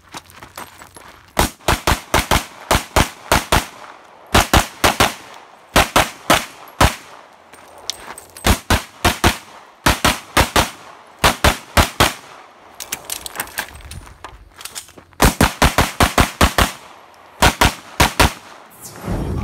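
Semi-automatic pistol fired rapidly on a timed practical-shooting stage: strings of quick shots, mostly in close pairs, with pauses of about a second between strings as the shooter moves between positions. The shooting starts about a second and a half in.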